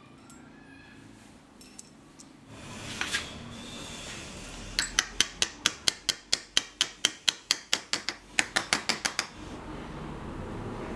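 A rapid, even run of about two dozen sharp metallic clicks, about five a second, lasting about four seconds in the middle, from hand-tool work on the saw.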